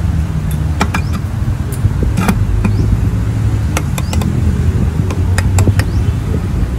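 Sharp metal clicks and clinks, scattered and irregular, as a CVT pulley is worked into place by hand against its steel push belt, over a steady low rumble.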